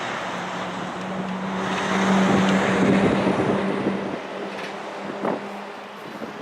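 Aircraft passing overhead: a broad rushing drone with a steady low hum in it, swelling to its loudest about two to three seconds in, then fading away.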